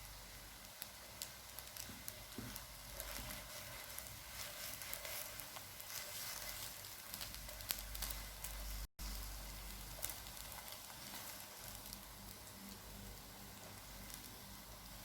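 Folded crepe parcels shallow-frying in vegetable ghee in a pan: a faint, steady sizzle with many small crackles. The sound cuts out for an instant about nine seconds in.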